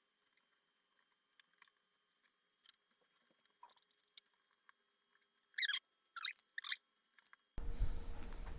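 Metal RF shield being pried off a Commodore 64 motherboard: faint scattered clicks and taps, then a few louder short metallic scrapes and crackles about five and a half to seven seconds in.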